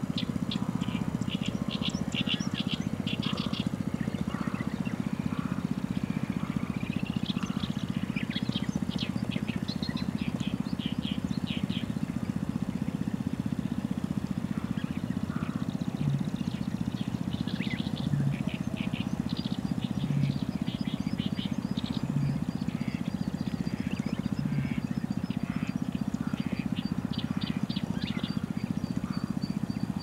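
Background birdsong: small birds chirping in quick runs of short high notes over a steady low rumble. From about halfway through, a short low note repeats roughly every two seconds.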